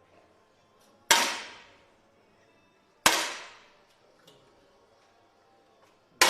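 Three 10m air rifle shots fired in a shooting hall, each a sharp crack with a short echoing decay; the first two come about two seconds apart and the third follows about three seconds later, near the end.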